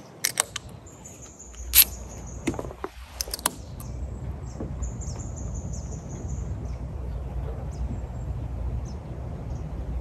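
Aluminium soda cans clicking and tapping as they are handled and set down on a pickup's hard tonneau cover, several sharp clicks in the first few seconds with the loudest about two seconds in. High thin chirps come and go, over a steady low rumble that begins about three seconds in.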